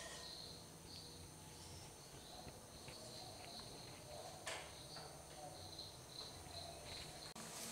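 Faint sizzle of beaten egg setting in hot oil in a non-stick pan, with soft, irregular high-pitched ticks about twice a second and a single sharp click about four and a half seconds in.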